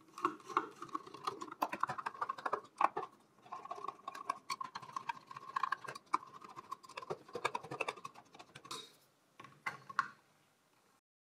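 A screwdriver backs out the mounting screws of a CPU cooler on a desktop motherboard: a long run of quick, light clicks and rasping of the screws turning. Near the end come a few handling knocks as the cooler is lifted off. The sound then cuts off abruptly.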